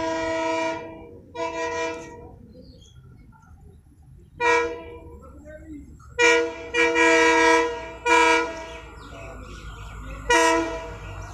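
Indian diesel locomotive's air horn sounding a series of about seven blasts, mostly short with one longer blast, as the train approaches. Under the horn there is a low engine rumble that grows near the end.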